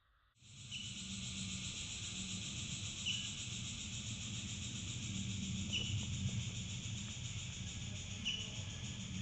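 Steady outdoor chorus of insects, starting abruptly, with a short high call repeating about every two and a half seconds over a low rumble.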